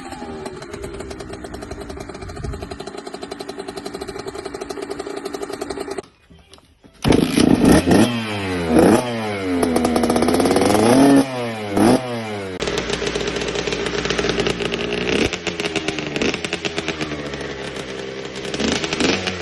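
Kawasaki KX65 two-stroke dirt bike engine running at a steady idle, cutting out briefly about six seconds in, then revved hard several times in quick rising and falling blips before settling back to idle with a few light blips.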